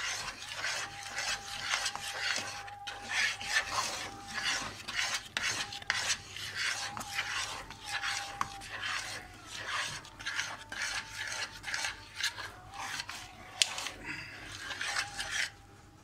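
Metal spoon scraping and stirring a thick, gummy homemade kaşar cheese mass against the sides and bottom of a stainless steel pot, in quick repeated strokes with small clicks of the spoon on the metal; it stops just before the end. The mixture has thickened to a chewy, gum-like stage.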